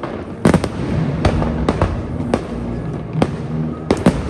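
Fireworks display: aerial shells bursting in a rapid series of sharp bangs, about a dozen in all, with the loudest cluster about half a second in and another just before the end.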